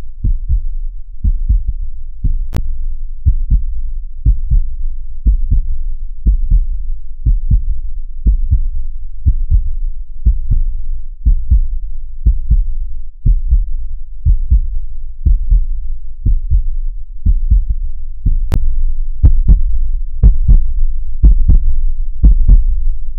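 Heartbeat sound effect: deep paired lub-dub thumps about once a second, steady, growing louder near the end. Two single sharp clicks stand out, one a few seconds in and one near the end.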